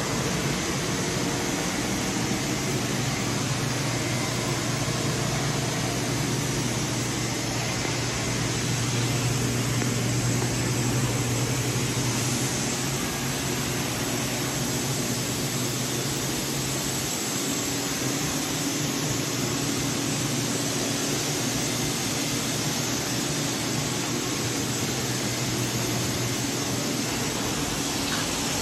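Steady hum and airy rush of machine-shop ventilation and powered machinery, with a low drone and a faint high whine; the low drone shifts to a higher note a little over halfway through.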